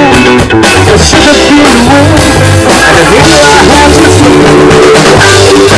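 Loud rock band playing: electric guitar, bass guitar and a Cadeson drum kit.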